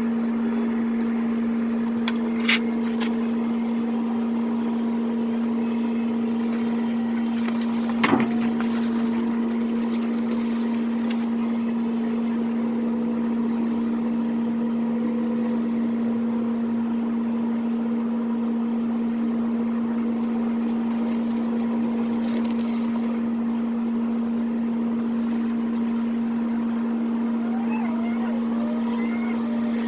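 A steady machine hum at one low pitch, unchanging throughout, with a sharp click about two and a half seconds in and a knock about eight seconds in.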